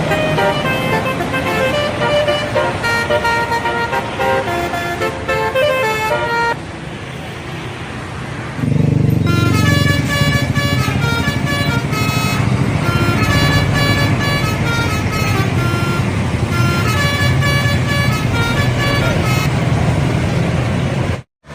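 Bus telolet horns, multi-tone musical air horns, playing quick stepped tunes, twice. From about nine seconds in, a bus engine runs loudly under the second tune.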